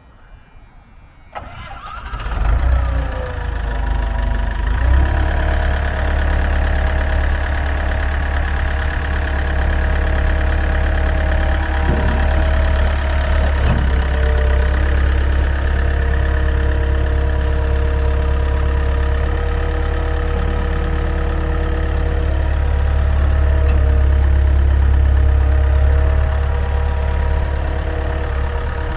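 Ford L785 skid steer loader's diesel engine starting about a second in, its pitch gliding as it catches, then settling into a steady idle.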